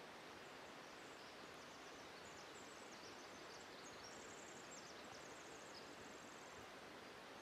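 Near silence in a conifer forest: faint steady hiss of forest ambience, with a few faint, very high-pitched chirping trills between about one and six seconds in.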